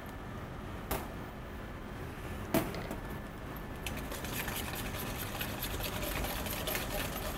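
Wire whisk beating mayonnaise into a coleslaw dressing in a stainless steel bowl. From about four seconds in the wires make a rapid, even clicking against the bowl. Before that there are a couple of single knocks as the mayonnaise is scooped into the bowl.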